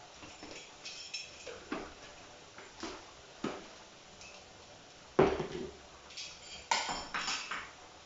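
Kitchen clatter: a series of light clinks and knocks of a utensil and containers being handled, with one louder knock about five seconds in and a quick run of ringing clinks near the end.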